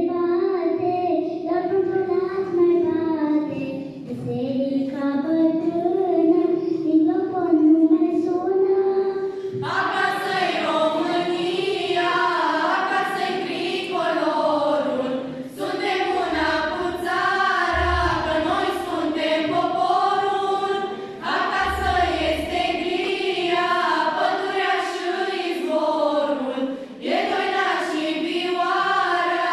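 Children's and girls' choir singing together, conducted. The singing grows fuller and brighter about ten seconds in.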